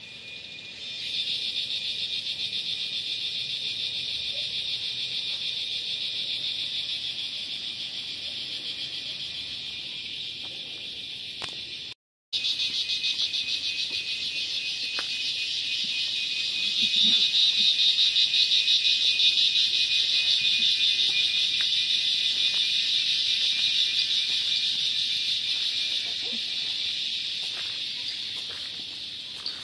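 Insect chorus: a steady, high shrill with a fast pulsing texture that starts about a second in, drops out for a moment near the middle, swells louder again, and eases off near the end.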